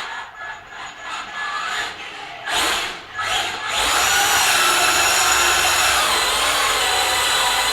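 Traxxas Slash RC truck driving: short bursts of motor whine, then from about four seconds in a steady high-pitched whine as it runs flat out.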